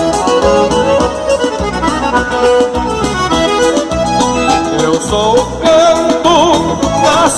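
Band playing an instrumental passage led by accordion, over bass and drums keeping a steady beat; from about five seconds in, a wavering melody line with strong vibrato comes to the front.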